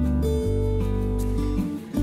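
Background music led by guitar, with sustained notes and a short break near the end.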